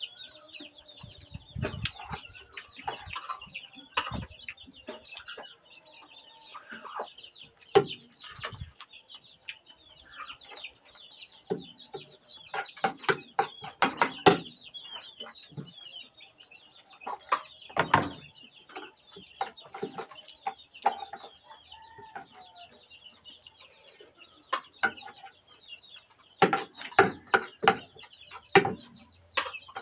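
Chickens clucking, with close eating noises: frequent sharp clicks and smacks of chewing and handling food. A steady high chirping runs underneath.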